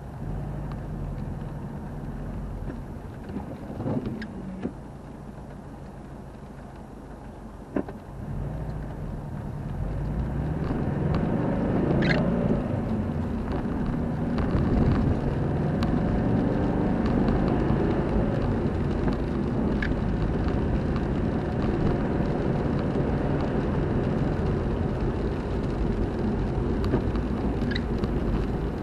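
Car running, heard from inside the cabin: a low, quiet rumble while it waits, growing louder from about eight seconds in as it pulls away and drives on a wet road. An intermittent windscreen wiper sweeps about every four seconds, each stroke a short tick.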